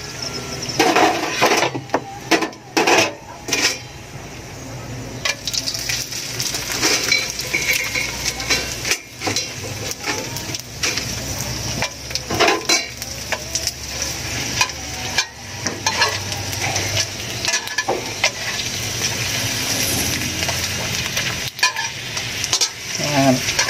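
Danggit (dried rabbitfish) pieces sizzling steadily as they fry in hot oil in a metal wok. A metal spatula clinks and scrapes against the wok now and then as the pieces are added and turned.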